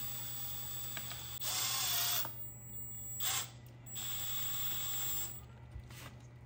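Cordless drill spinning a cutting attachment into a whole orange, in bursts: a loud one about a second and a half in, a short one past three seconds, and a steadier whining run from about four seconds to past five.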